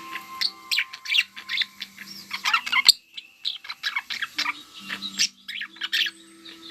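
Budgerigars chattering: a rapid run of short chirps and warbles from several birds. It breaks off briefly with a click about three seconds in.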